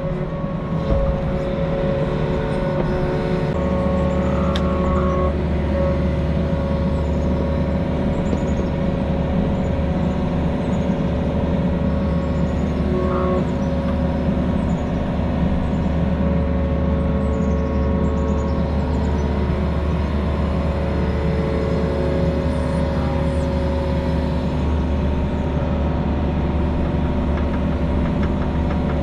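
Diesel engine of a compact construction machine running steadily, with a deeper low drone coming in about three and a half seconds in.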